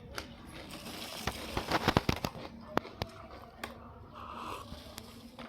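Plastic snack packet of namkeen being handled, crinkling and crackling, with a dense run of sharp crackles about two seconds in and a few single snaps after.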